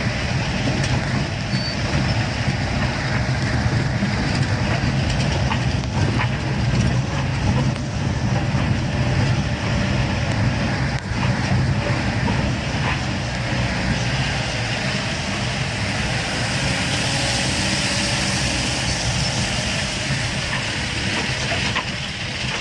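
Inside a vehicle driving slowly over a rough gravel mountain road: steady engine and road rumble with the body knocking and rattling over stones. In the second half a hiss grows louder as water running off the cliff spatters onto the vehicle.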